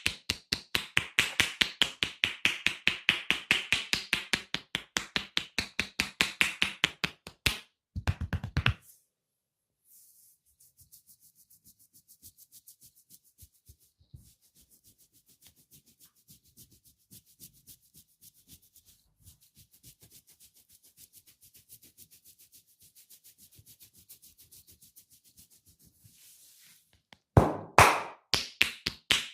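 Rapid hand percussion of a barber's massage: fast, even slaps at about five a second for some seven seconds. Then a long, quiet stretch of soft rubbing and light skin or hair sounds. The fast slapping starts again near the end.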